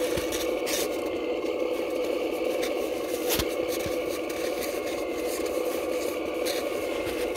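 Scale RC 6x6 truck (Cross RC KrAZ-260) crawling through snow: its drivetrain runs with a steady whine, and there are a few short clicks.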